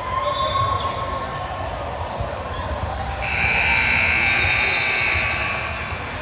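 A basketball bouncing on a gym floor. About three seconds in, a loud, shrill steady signal tone sounds for about two seconds, the kind used to stop play.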